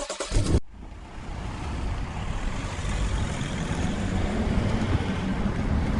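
A vehicle driving, its engine and road noise a steady rumble that slowly grows louder. A short burst of sharp knocks comes in the first half second.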